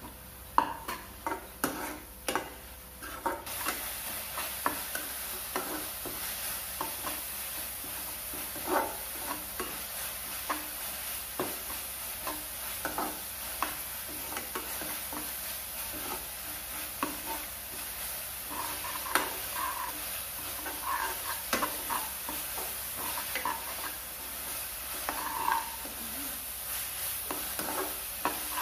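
Chopped onions and chillies frying in a nonstick kadai, sizzling steadily, while a steel spoon stirs and scrapes them with frequent clinks against the pan. The sizzle comes up about three seconds in; the sharpest clinks are in the first couple of seconds.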